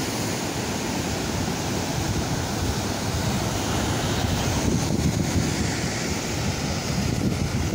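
Sea surf washing and breaking against rocks below a cliff, a steady rush of water, with wind buffeting the microphone.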